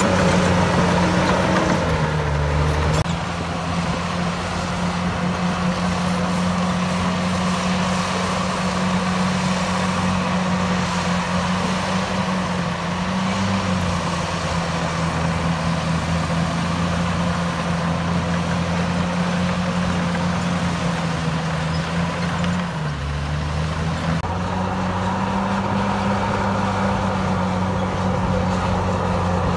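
Diesel engine of heavy earthmoving machinery running steadily. Its pitch drops briefly about two seconds in and again about twenty-three seconds in, then recovers.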